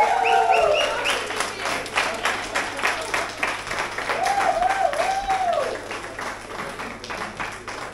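A group of people clapping and applauding, with a voice cheering over it: a long shout at the start and a wavering whoop about four seconds in.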